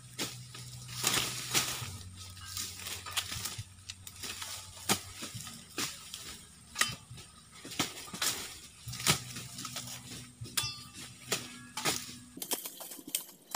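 Machete chopping through sugarcane stalks: irregular sharp chops and cracks, roughly one every second or so, with dry cane leaves rustling between them.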